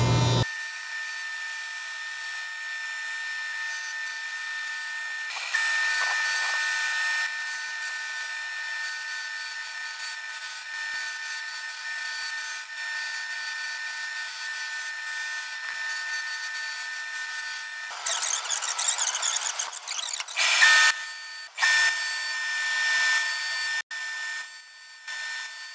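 Wood shaper's spinning cutter running a steady, thin whine as it cuts tongue-and-groove joints in wooden boards, with louder cutting stretches about six seconds in and again from about eighteen seconds, breaking up unevenly near the end.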